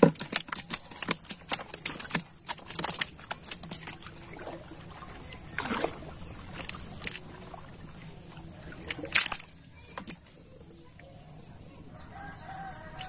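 Wet gill net being hauled by hand into a wooden boat: water dripping and splashing off the net, a quick patter of drips and small knocks in the first few seconds, then only occasional splashes. A thin steady high tone runs underneath.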